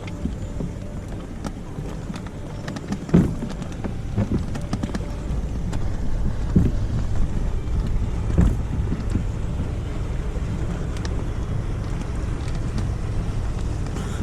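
Wind rumbling on the microphone with a few short knocks, the loudest about three seconds in, from the phone being handled.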